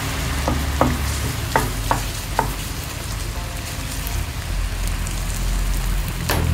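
Red curry paste and palm sugar sizzling in a non-stick frying pan while a wooden spatula stirs and scrapes them, knocking against the pan several times in the first two and a half seconds. The steady sizzle carries on after the stirring stops.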